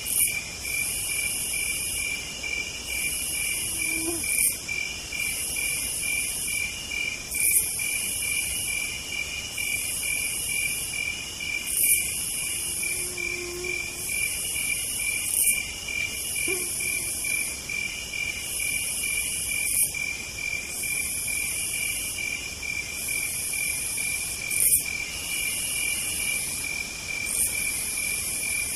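Chorus of night-singing insects: crickets trilling. A steady, quickly pulsing trill holds one pitch, while a higher, hissier buzz comes in phrases of about a second and a half with short gaps between them.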